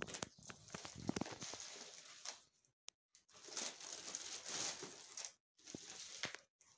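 Rustling and crackling of freshly picked broad bean plants as the green pods are pulled and snapped off their stalks, coming and going with a few brief silent gaps.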